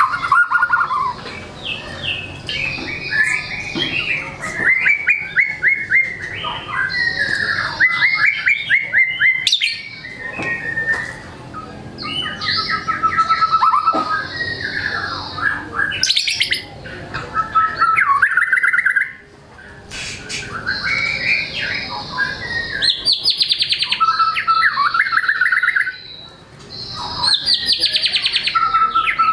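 White-rumped shama (murai batu) in full song, pouring out a rapid, ever-changing stream of whistles, sliding notes and fast trills with only brief pauses. This is the bird running through its learned repertoire of phrases, which keepers call 'bongkar materi'.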